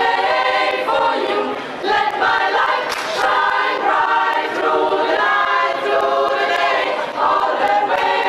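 A flashmob choir of many voices singing together, holding sustained notes in phrases with short breaks between them.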